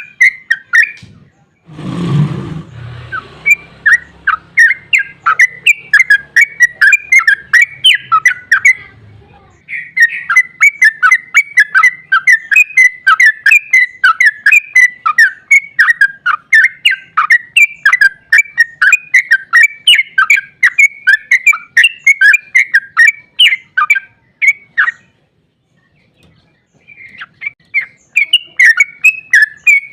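Yellow-vented bulbul (trucuk) calling in a long, rapid run of loud chattering notes, several a second. About two seconds in there is a dull thump followed by a low hum that fades out, and near the end the calling breaks off briefly before starting again.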